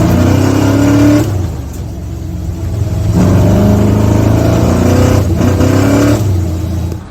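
Car engine accelerating hard, its pitch climbing steadily, easing off about a second in, then climbing again from about three seconds in before dropping back near the end.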